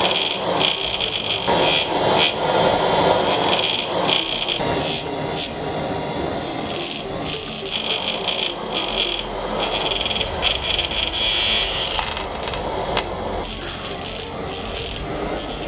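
Homemade jam-jar jet engine running: a rushing, hissing roar that surges up and down in level and eases off over the last few seconds.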